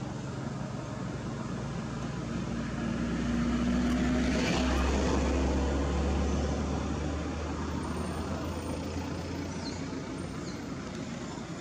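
Low, steady engine hum of a motor vehicle, growing louder toward the middle and then fading again, as of a vehicle passing.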